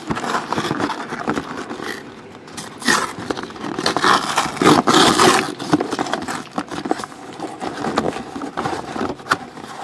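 Hands handling a cardboard trading-card hobby box and its packs close to the microphone: irregular scraping and rustling of cardboard, with sharper clicks and a few louder rustling bursts about three to five and a half seconds in.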